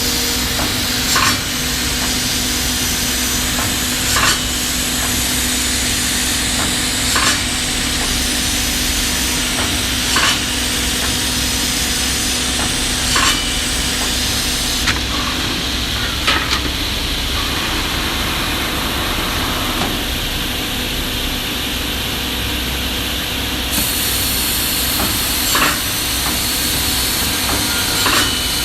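Automatic wood cut-and-drill machine for corner brackets running: a steady motor hum and hiss, with a short, sharp machining stroke about every three seconds as it works through pieces, pausing for several seconds in the second half.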